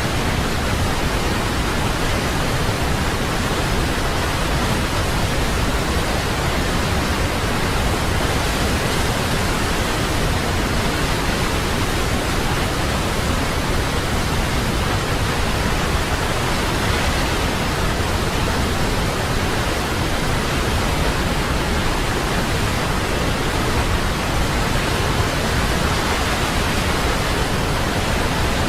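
Waterfall: a steady, unbroken rush of falling water with no other sounds, even in level throughout.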